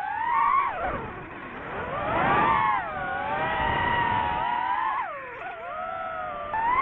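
DJI FPV drone's motors and propellers whining, the pitch swooping up and down with the throttle: a rise and fall in the first second, a surge about two seconds in, a steadier stretch, a dip a little after five seconds and another surge at the end.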